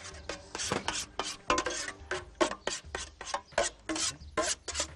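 A whisk scraping and beating a creamy carrot-flan mixture against a stainless steel pan, in quick even strokes about five a second, as fresh cream is mixed in.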